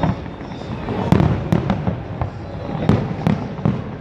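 Aerial fireworks exploding in a steady run of booms and cracks, several a second at the busiest moments, over a continuous rumble of shell bursts.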